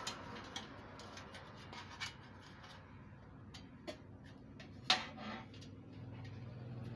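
Scattered light clicks and rubbing of plastic as the white plastic dish reflector panels of a Ubiquiti LiteBeam M5 are handled and fitted together, the sharpest click about five seconds in. A low steady hum starts to rise near the end.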